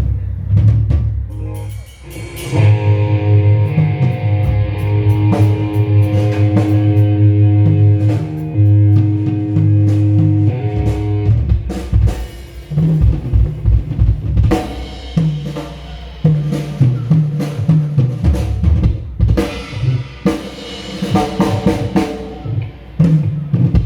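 Rock band instruments being run through the PA at a sound check: drum kit strikes, with bass notes and chords held for several seconds in the first half, then choppier stop-start bass hits and drum strikes.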